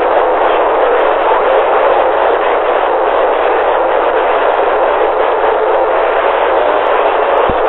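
Steady loud static hiss through a UHF CB radio, an even band of noise with no voice in it. A short low click near the end.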